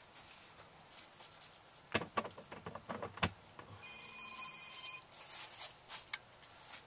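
A few sharp clicks and knocks, then a steady electronic beep lasting about a second, followed by a couple more clicks.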